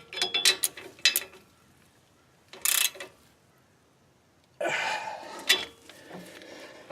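Metal hand tools clinking against nuts and bolts, with a few clicks in the first second and two short rattling bursts, one near the middle and a longer one a little later, as nuts are tightened with a torque wrench.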